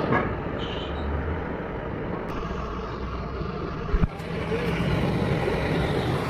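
Gas soldering torch burning with a steady rushing noise while solder is flowed around a copper filler neck on a radiator top tank. A single sharp click about four seconds in.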